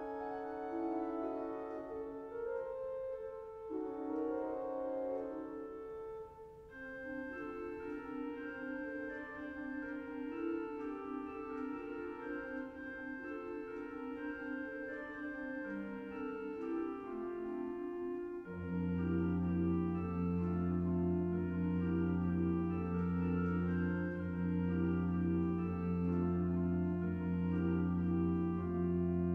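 Pipe organ playing sustained, slowly changing chords. About two-thirds of the way through, a deep bass note comes in underneath and holds, and the organ gets louder.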